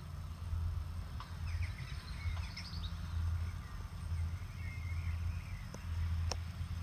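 Birds chirping in short gliding calls over a low, uneven rumble, with two sharp clicks near the end.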